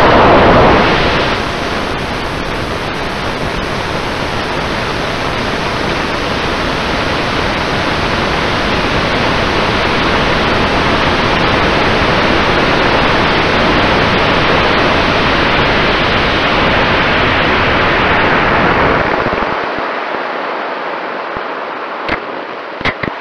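Rocket flight heard from an onboard camera: a CTI L820 Skidmark motor lights with a loud blast, then a steady rushing noise of exhaust and air rushing past the rocket. It stays steady for about nineteen seconds, then fades as the rocket slows toward apogee. A few sharp clicks come near the end.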